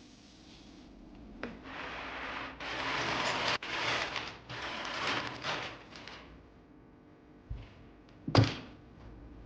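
Handling noise while working on a mechanical keyboard: a few seconds of rustling and scraping, then a sharp thunk near the end as something is set down on the desk.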